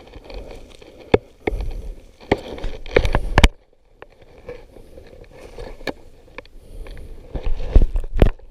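Close handling noise: rustling, scattered sharp knocks and short low rumbles, the heaviest just past the middle and again near the end, with a brief lull between.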